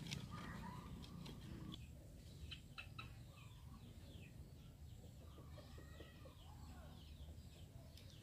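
Faint chickens clucking and chirping in the background, many short falling chirps in quick succession. In the first two seconds there are a few light knocks of split firewood being set into a clay stove.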